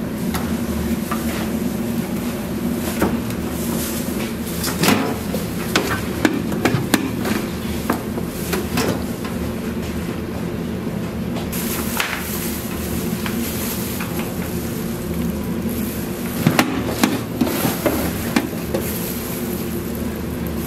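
Kimchi being hand-mixed and moved between metal mixing bowls: scattered sharp knocks and clinks of the steel bowls, bunched twice, about five seconds in and again near the end, over a steady low hum.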